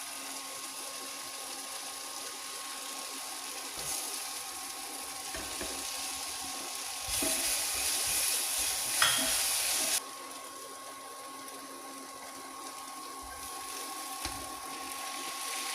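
Kitchen tap running for about three seconds and shut off abruptly, over a steady background hiss and hum.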